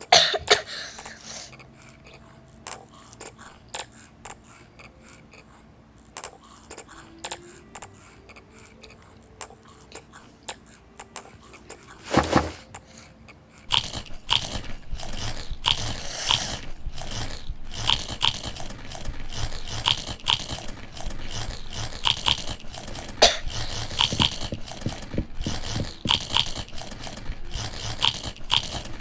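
Someone biting and chewing crunchy food close to the microphone. It starts as scattered clicks, then turns into steady, louder chewing from about halfway through.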